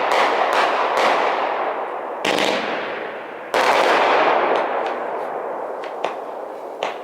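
Fireworks going off: rapid cracks over a dense crackle, with two fresh volleys about two seconds and three and a half seconds in, then the crackle fades to scattered pops near the end.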